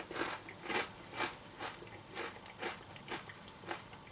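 A mouthful of cauldron-cooked jalapeno cheddar potato chips being chewed, crunching about twice a second.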